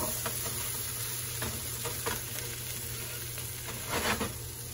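Sauced noodles and vegetables sizzling in a hot oiled skillet while being tossed and stirred with a plastic spatula, with a few brief scrapes of the spatula against the pan, the strongest about four seconds in.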